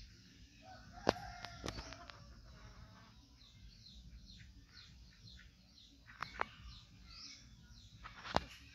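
Small birds chirping over and over, with a few sharp clicks about a second in, again near six seconds and near the end.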